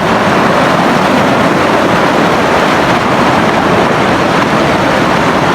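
Mountain stream rushing over rocks close by: a loud, steady water noise.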